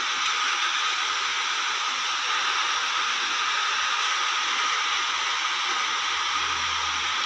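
Muddy floodwater rushing down a street in a steady, unbroken hiss.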